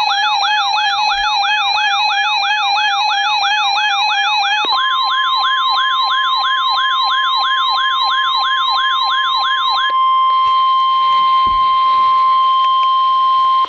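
Weather radio alert alarms: a siren-like warble sweeping up and down about three times a second over a steady beep tone. About four and a half seconds in the steady tone steps up to the NOAA Weather Radio 1050 Hz warning alarm tone, and about ten seconds in the warble stops, leaving the 1050 Hz tone sounding alone.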